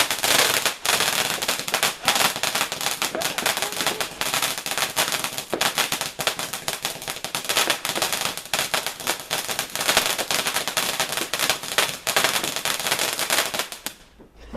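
Firework crackling in a dense, rapid run of sharp cracks for about fourteen seconds, stopping suddenly near the end.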